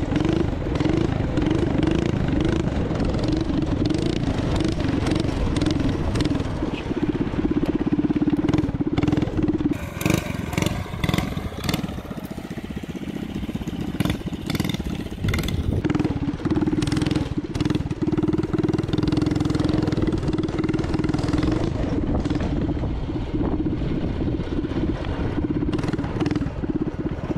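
Small gas engine of a motorized drift trike running hard, its pitch wavering up and down as the throttle is worked. Wind buffets the rider's camera microphone.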